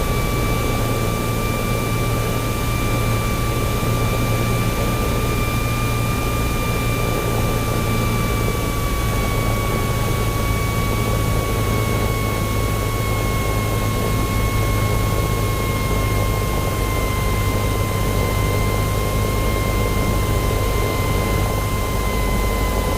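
Cessna 172 cabin noise on final approach: the steady drone of the engine and propeller over rushing air. A thin steady whine sinks slowly in pitch as the plane slows, then rises again near the end.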